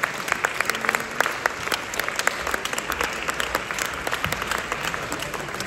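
Audience applauding, a dense patter of clapping that dies down a little near the end.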